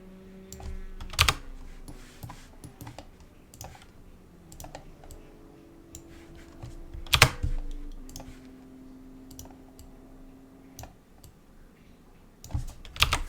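Computer keyboard and mouse being worked: scattered key presses and clicks, with three louder clicks about a second in, near the middle and near the end. A faint low hum with a few steady tones that shift in pitch runs underneath.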